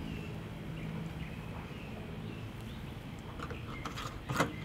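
Low, steady background noise, then a sharp plastic click about four seconds in as the fuel cap goes back onto the Generac iQ3500 generator's tank.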